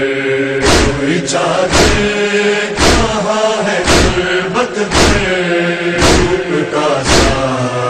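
A noha, a Shia lament, chanted by a group of male voices in long held lines, with a unison hand strike of matam on the chest about once a second keeping the beat.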